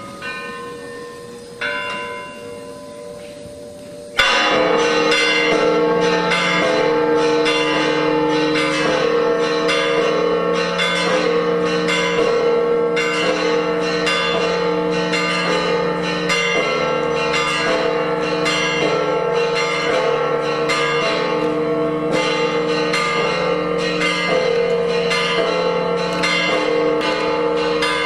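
Church bells ringing: a few single strokes at first, then, about four seconds in, a loud peal of several bells at different pitches, struck in quick succession and ringing on without a break.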